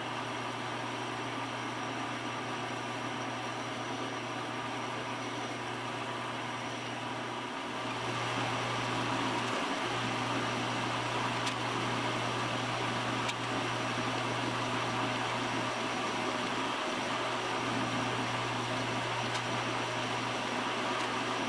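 Machine-tool spindle running steadily, spinning a rubberized abrasive bit that is pressed onto an aluminum dash panel to engine-turn overlapping circles. The hum gets a little louder about eight seconds in, with a few brief dips.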